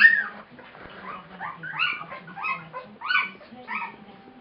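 Two-week-old Siberian husky puppies whimpering and squealing in a quick run of short, high calls, about two or three a second, the first the loudest.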